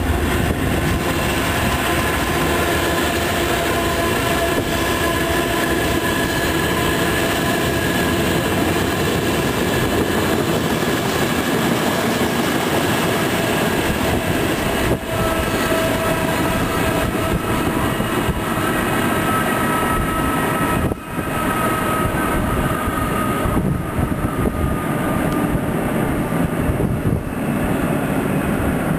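A train rolling past on the tracks below, a steady rumble of wheels on rails with a few thin, steady, high tones running over it.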